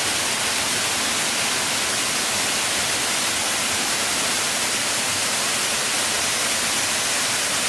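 Steady rushing hiss of a waterfall, even and unbroken throughout.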